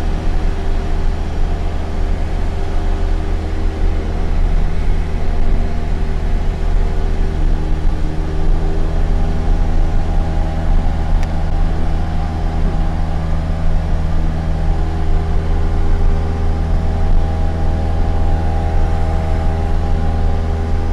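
Steady drone of a light aircraft's single piston engine and propeller in cruise flight, heard inside the cabin: a deep, even hum.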